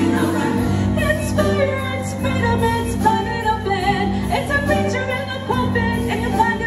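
Show choir number in full swing: an upbeat accompaniment with steady bass notes and the choir's voices over it.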